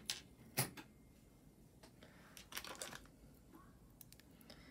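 Faint handling of metal costume jewelry on a tabletop: one sharp click about half a second in, then a few light clicks and rustles near the middle as pieces are put down and picked up.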